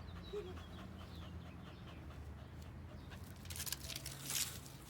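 Faint bird chirps over a low steady hum, with two short scratchy rustles in the second half, the second one the loudest.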